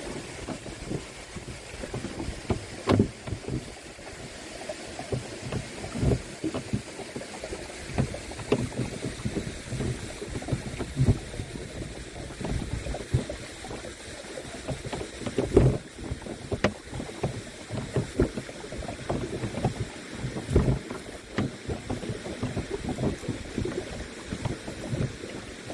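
Canoe paddle strokes splashing and water sloshing against the hull, in irregular splashes over a steady rush of water and wind on the microphone.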